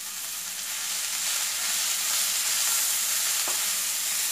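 Thinly sliced onions sizzling in hot coconut oil in a kadai while being stirred with a spatula; the sizzle grows louder about a second in.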